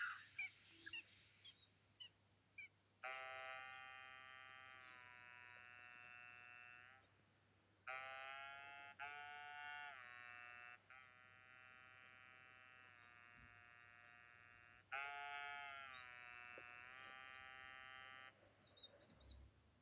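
A few short chirps and clicks, then an electronic tune of long, reedy held notes that change pitch in steps. The tune comes in four phrases with short gaps and stops shortly before the end.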